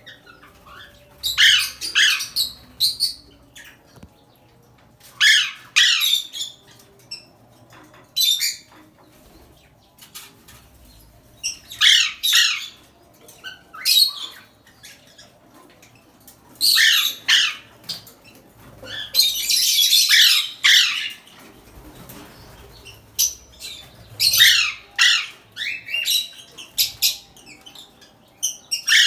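Pet parrot squawking in short, harsh bursts every second or two, with quiet gaps between them. About twenty seconds in there is a longer burst of rushing noise.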